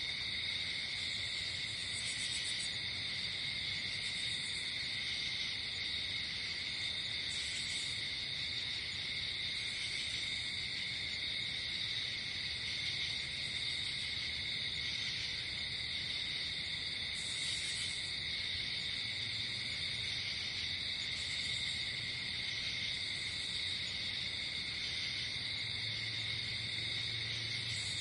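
Night chorus of crickets and other insects: a dense, steady trilling, with a higher insect call pulsing briefly every couple of seconds.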